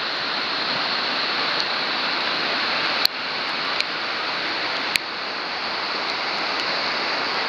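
Whitewater rushing steadily over a river weir, a dense roar of churning foam. Two brief sharp clicks about three and five seconds in.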